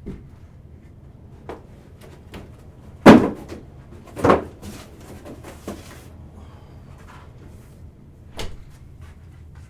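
A handful of knocks and thumps from objects being handled and set down, the loudest about three seconds in and another about a second later, with a few lighter ones around them.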